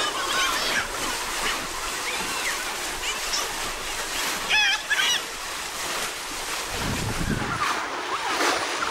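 Pond water churned and splashed by a crowd of people wading through it and plunging bamboo fish traps, a steady wash of sloshing water. A few short high-pitched shouts rise over it about halfway through.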